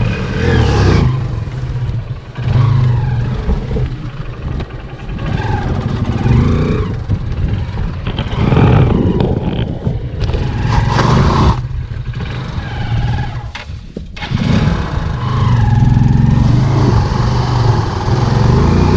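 Motorcycle engine revving hard in repeated surges, rising and falling as the bike is pushed up a rocky climb with its tyre slipping on rock.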